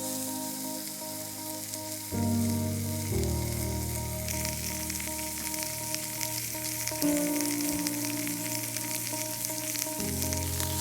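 Food sizzling and frying on a hot grill or pan, the crackle growing louder about four seconds in, over background music with held chords.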